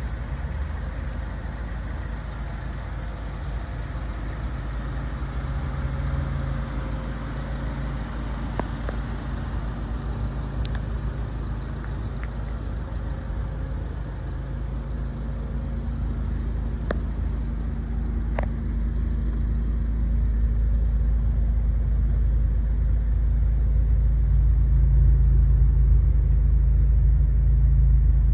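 Ford Focus ST's engine idling steadily with a low, even rumble, with a few light clicks around the middle.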